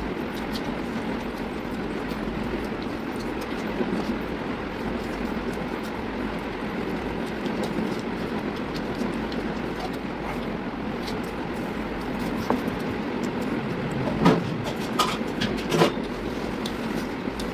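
Steady rumbling background noise, with a few short sharp clicks near the end.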